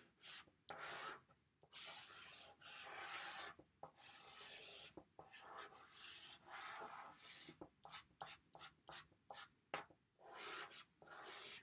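Chalk pastel scratching across paper in a series of drawing strokes as an outline is traced, longer strokes at first, then a run of short quick ones about two thirds of the way in.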